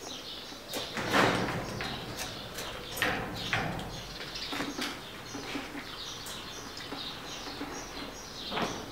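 Birds chirping in many short repeated calls, with a louder burst of noise about a second in.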